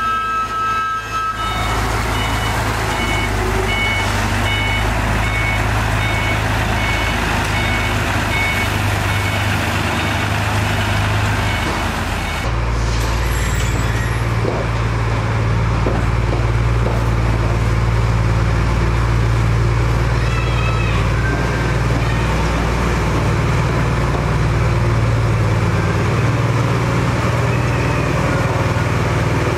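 Diesel engines of heavy road-construction machinery running steadily, with a reversing alarm beeping repeatedly for several seconds near the start. The engine sound changes abruptly near the middle.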